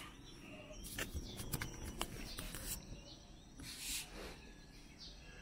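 Scattered bird chirps in the background, with a run of sharp clicks and a couple of brief rustles from a handheld camera being turned and handled.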